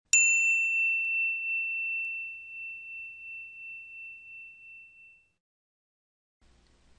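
A single high, bell-like chime struck once, its clear tone ringing and fading away over about five seconds: a logo sound effect.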